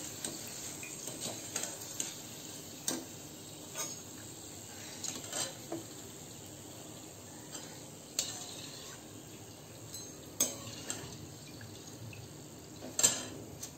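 Wire-mesh skimmer and slotted steel spatula scraping and clinking against a steel kadhai as fried chana dal is scooped out of hot oil, with several sharp clinks, the loudest near the end. Under them, a faint steady hiss of the frying oil.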